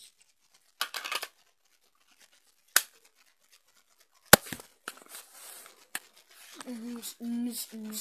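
Handling noise: a short rustle about a second in, then two sharp clicks, the second louder, and a few lighter taps after them.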